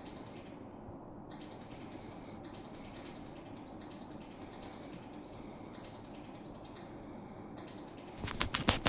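Steady background noise, then a quick cluster of sharp clicks or knocks near the end.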